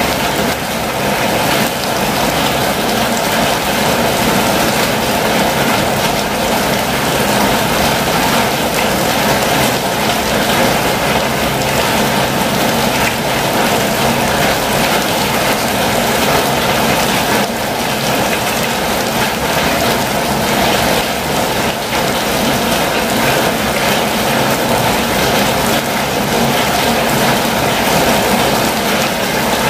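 Steady heavy rain falling on a campervan's roof and windows: a dense, even hiss made of countless small drop hits.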